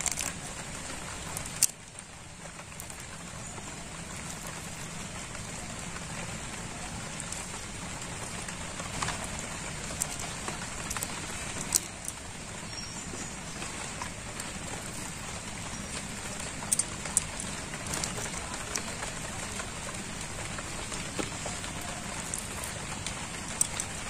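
Raw prawns being peeled by hand over a bowl of water: small wet clicks and drips of shells and water, scattered a few seconds apart over a steady hiss that sounds like rain.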